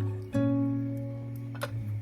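Acoustic guitar music, plucked chords ringing, with a new chord struck about a third of a second in.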